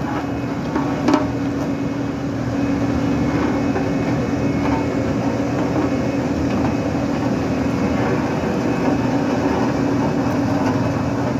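Heavy diesel engine, of a truck or road machine, running steadily under load with a constant hum, with a sharp knock about a second in.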